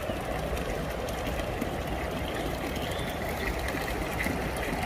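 A steady, even rushing noise with no distinct events, fainter higher sounds coming in over it in the second half.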